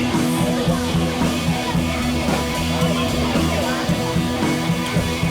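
Background rock music with guitar and drums and a steady bass line.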